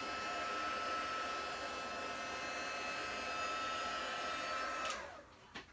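Heat gun blowing hot air with a steady whine, melting white embossing powder. About five seconds in it is switched off and its fan spins down, the whine falling in pitch as the air noise stops.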